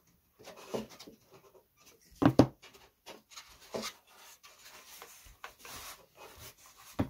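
Balsa wood parts handled and pressed together by hand on a workbench: light rubbing and scattered small knocks, with a louder double knock a couple of seconds in and another knock near the end.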